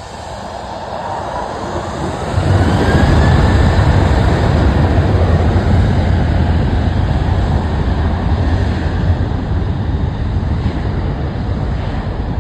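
Jet airliner engines spooling up with a rising whine, then running at takeoff thrust from about two seconds in with a loud, steady low rumble.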